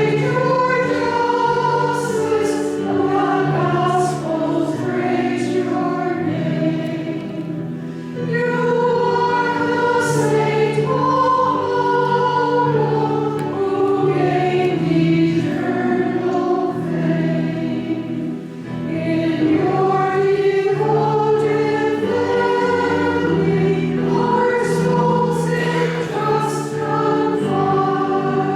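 A choir singing a slow hymn in sustained notes, the offertory hymn of the Mass.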